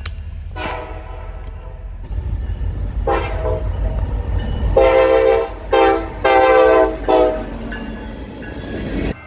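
Diesel locomotive air horn giving six blasts of varying length, short toots among longer ones, the loudest in the middle of the run, over the low rumble of the passing train. The sound cuts off abruptly near the end.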